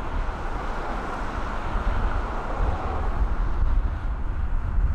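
Airbus A330-200 jet engines at high power on the takeoff roll, heard from afar as a steady rumble that grows a little louder toward the end, with wind buffeting the microphone.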